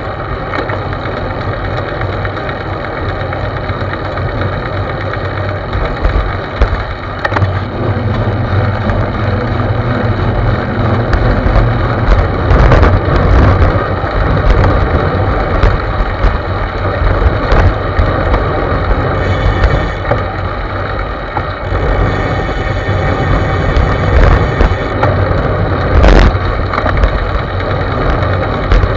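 Wind rumble over the microphone of a bicycle-mounted camera, together with tyre and road noise from riding, swelling and fading as speed and gusts change. There are a few sharp knocks, the loudest near the end, from jolts over the road surface.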